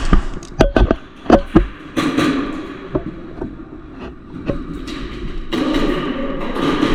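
Airsoft gunfire: about five sharp cracks at uneven spacing in the first two seconds, then a few fainter taps, with a rushing noise in the second half.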